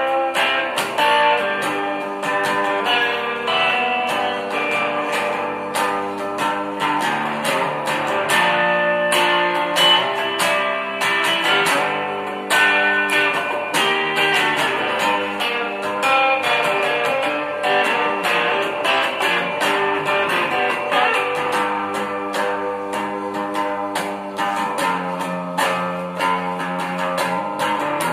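Guitar played in a continuous passage: picked notes over ringing chords.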